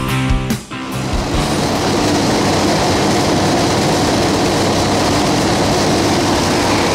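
A guitar-backed music track ends about a second in. It gives way to a steady, loud drone from a skydiving jump plane's cabin, the aircraft engine running evenly.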